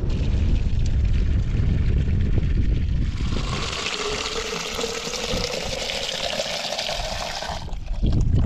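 Water pouring into a container for a few seconds, with a faint tone that rises slightly as it fills, then stopping abruptly. Before the pour there is a low rumble of wind on the microphone.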